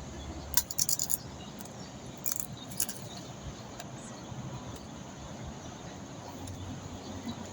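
A quick run of light jangling clicks about half a second in, then two more short rattles a second or two later, over a steady background hiss.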